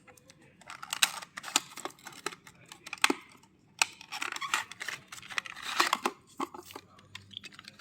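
Hands opening and handling a diecast model car's cardboard and plastic packaging: bursts of rustling and scraping with sharp clicks and taps, loudest about a second in and again from about four to six seconds.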